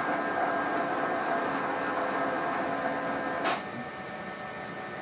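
Zebra ZXP Series 8 card printer running steadily with a whine of several tones as its rollers feed a moistened cleaning card through to scrub the side rollers. A sharp click about three and a half seconds in, after which it runs more quietly.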